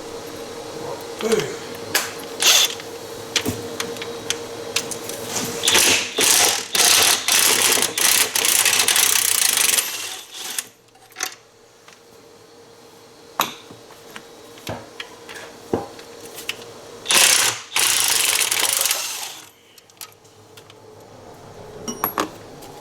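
Hand ratchet working Torx T45 bolts out of a CVT housing. Runs of rapid ratchet clicking come about 6 to 10 seconds in and again near the end, between separate clicks and clinks of tools on metal. A faint steady hum runs through the first half.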